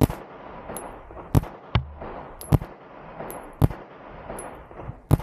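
9 mm handgun firing six single shots in a row, unevenly spaced about a second apart.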